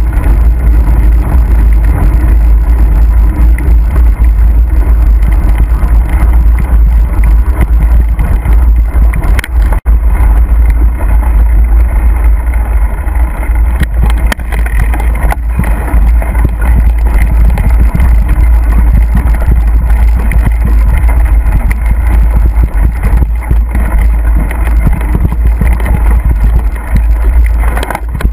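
Mountain bike riding over a bumpy, wet grass-and-dirt trail, heard as a loud, constant low rumble of wind buffeting and jolting on the ride-along camera's microphone. The sound cuts out for an instant about ten seconds in.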